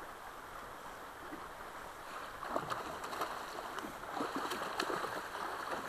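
Steady river water running past a drift boat, then from about two seconds in, irregular splashing as a hooked coho salmon thrashes in the landing net at the surface.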